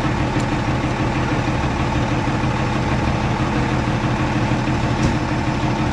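A heavy vehicle's engine idling steadily, a constant low hum.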